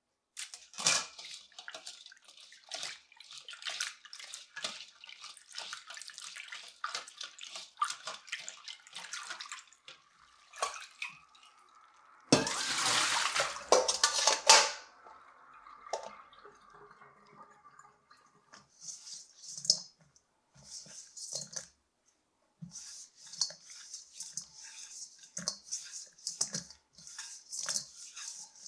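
Hands working small kibinago fish in a bowl of water: wet splashes, drips and clicks. A tap runs for about two and a half seconds near the middle, the loudest sound.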